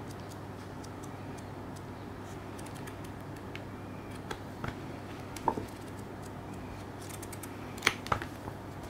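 Pages of a stapled paper booklet being turned by gloved hands: light paper rustles and a few sharp page snaps, the loudest about halfway through and twice near the end, over a steady low hum.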